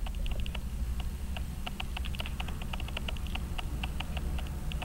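Rapid, uneven light clicks, several a second, like keys being typed, over a low steady hum.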